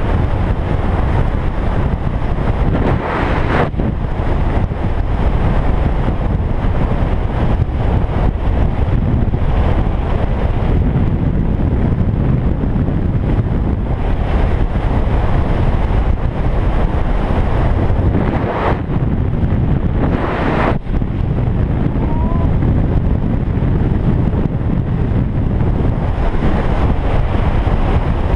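Wind rushing over a GoPro action camera's microphone as a mountain bike coasts fast downhill on an asphalt road, with the low rumble of the tyres on the tarmac beneath it. The rush swells a few times and cuts back sharply after each swell.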